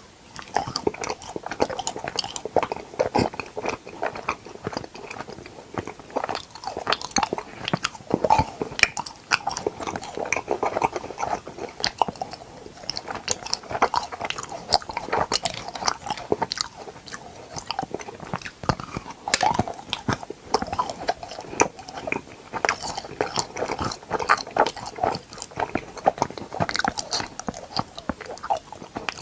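Close-miked eating for ASMR: crunchy bites and steady chewing, with a dense run of small crackling, smacking mouth sounds.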